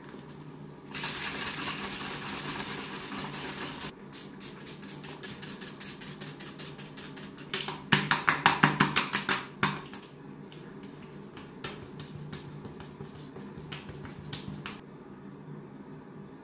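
Hands patting toner into facial skin: a run of quick light slaps, loudest and fastest in a burst about eight seconds in. A rush of noise comes before it for about three seconds, and a steady low hum lies underneath.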